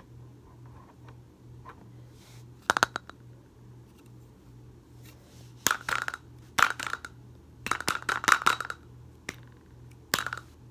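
Handling noise: short clusters of hard clicks and clacks, like plastic knocking together, coming about five times with the busiest run about eight seconds in, over a low steady hum.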